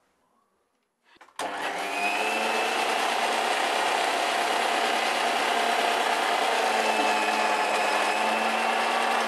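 Electric kitchen blender blending fruit for juice: after about a second and a half of near silence the motor starts and runs loudly and steadily at one pitch, beginning to wind down right at the end as it is switched off.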